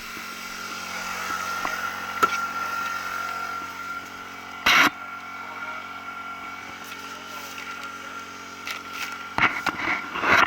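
Radio-controlled racing boats running on the water, a steady high-pitched motor whine. A brief loud rush of noise comes about halfway through, and a few sharp knocks come near the end.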